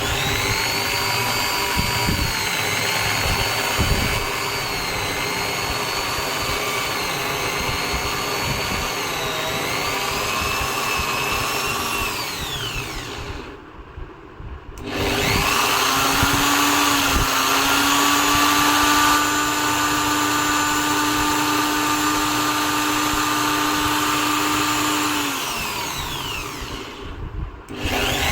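Electric drill press motor running at speed, used as a lathe to spin a hardwood dowel. Its whine winds down to a stop about halfway through, starts again with a rising pitch, runs steadily, then winds down once more and restarts right at the end.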